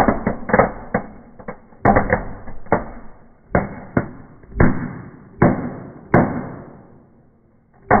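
Small fireworks going off inside a fireplace: a quick run of sharp cracks, then single bangs about every ¾ second, each dying away, thinning out near the end before one more bang.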